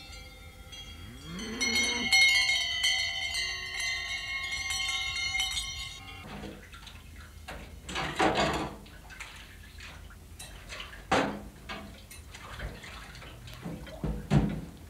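Cowbells on grazing cattle clanging at several pitches, with a cow lowing once about a second and a half in. About six seconds in, this gives way to dishwashing at a kitchen sink: splashing water and the knock and clatter of crockery and a pot.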